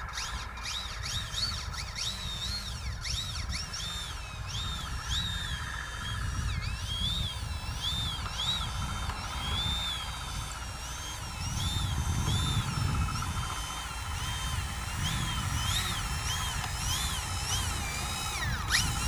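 The electric motor and propeller of a Flite Test Freedom Fox RC plane whine as it taxis on grass. The pitch rises and falls over and over with the throttle, over a low rumble that is loudest about twelve seconds in.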